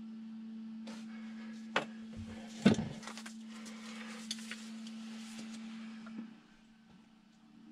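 Tools being handled on a fibreglass boat floor: a few sharp clicks and one loud knock about three seconds in. A steady low hum runs underneath and stops about six seconds in.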